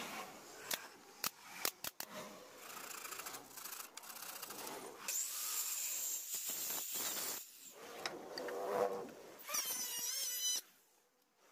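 A pneumatic nailer firing four sharp shots in the first two seconds, then a handheld circular saw running and cutting wood with a loud, hissy whine, then an electric hand planer's whining motor, which wavers in pitch and cuts off abruptly about a second before the end.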